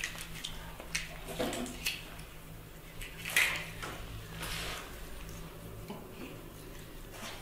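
Scattered small clicks, taps and rustles of a puppy and a baby monkey moving about and nosing at small plastic objects on a soft pet bed, with a louder rustling burst about three and a half seconds in, over a faint steady hum.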